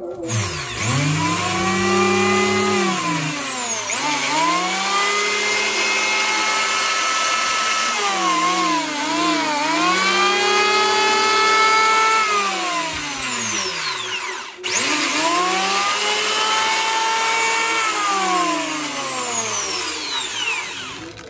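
Stanley electric hand planer running free with no wood under it, tested just after reassembly. The motor spins up, slows and speeds up again several times, cuts out sharply about two-thirds of the way through, then spins up again.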